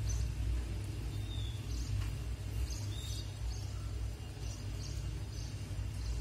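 Steady low background hum, with a few faint, short bird chirps above it.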